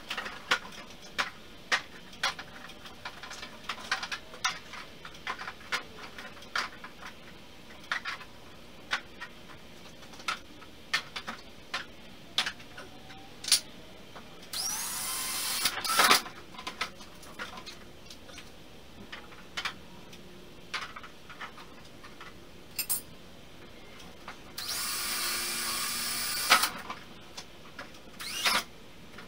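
A cordless drill runs twice, for about two seconds each time, spinning up with a rising whine as it bores into plywood. Many sharp clicks and taps come in between as the parts are handled.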